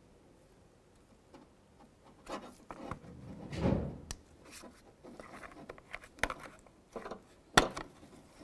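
Plastic door-latch cover and latch being handled and slid apart: scattered light clicks and scrapes, a dull bump about halfway through, and a sharp plastic click near the end.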